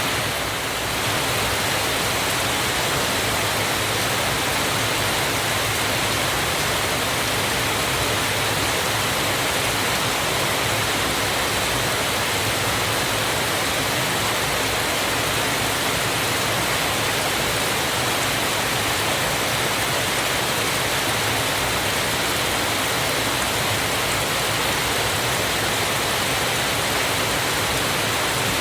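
Waterfall running steadily: a dense, even rush of falling water with no change in level.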